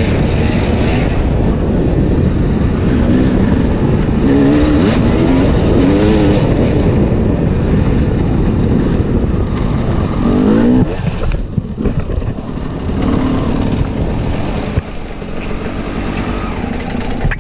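Husqvarna TE300 two-stroke enduro bike's engine under way on a dirt trail. The engine note rises and falls several times as the throttle is worked, and eases off briefly about eleven seconds in.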